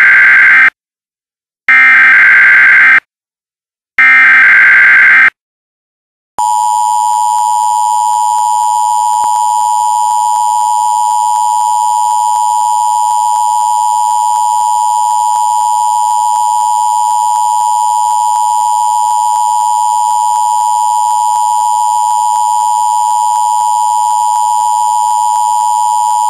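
Emergency Alert System alert tones: three short, loud bursts of the SAME digital data header, then after a brief gap the two-tone EAS attention signal (853 and 960 Hz together). The attention signal holds steady for about twenty seconds and then cuts off.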